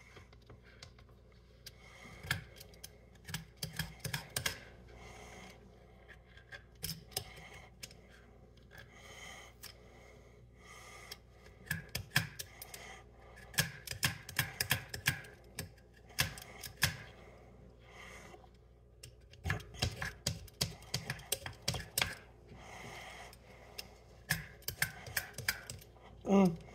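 Handheld vegetable peeler scraping the skin off a ginger root in quick, irregular clicking strokes.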